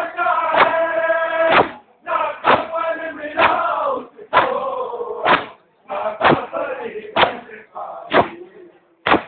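Crowd of men chanting a mourning noha in chorus while beating their chests in unison (matam), a sharp slap about once a second under the held chanted lines.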